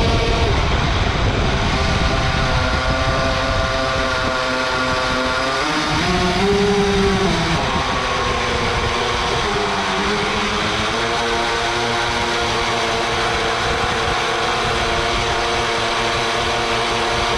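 Lestro Arrow RC boat's motor heard from on board, running with a steady multi-toned whine that drops and shifts in pitch about six seconds in and again around ten seconds in, as the throttle changes, over a constant rushing noise.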